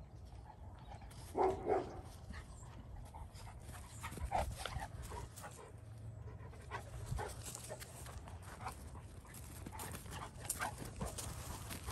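Great Pyrenees and cocker spaniel at rough play: panting and scuffling, with two short, loud dog vocal bursts about a second and a half in and scattered smaller dog sounds after.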